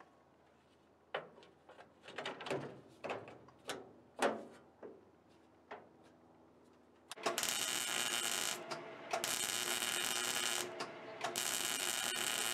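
Sheet-metal roof panel knocking and clunking as it is handled and set onto the body, then a MIG welder crackling in three runs of about a second and a half each as the panel's seam is welded from the outside.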